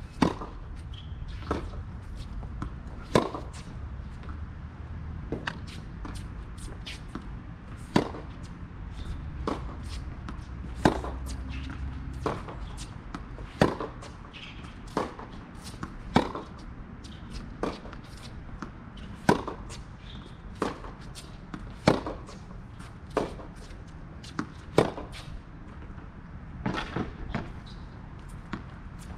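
Tennis rally on a hard court: rackets striking the ball and the ball bouncing, sharp pops in a steady back-and-forth rhythm, loud and fainter ones alternating every second or so.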